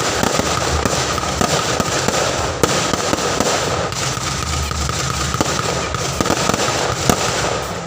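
Fireworks display: a dense, continuous run of sharp bangs and crackles, overlapping one another without a break.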